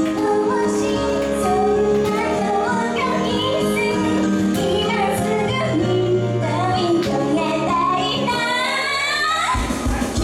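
A teenage girl singing a pop song into a handheld microphone over an amplified backing track. The bass drops out for a moment and comes back near the end.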